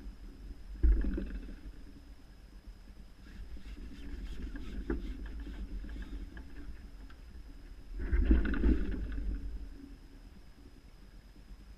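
Two bursts of rumbling, rustling noise close to the microphone, about a second in and again around eight seconds in, the second lasting longer. A faint steady high whine runs underneath.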